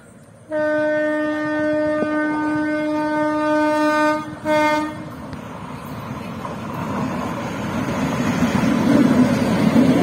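Electric locomotive's horn from a WAP-7: one long blast of about three and a half seconds, then a short second blast. After the horn, the rumble of the approaching express train builds steadily as it reaches the crossing.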